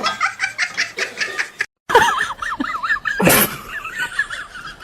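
A person laughing in quick pulses, cut off suddenly. It is followed by high, rapidly wavering calls and a short noisy burst partway through.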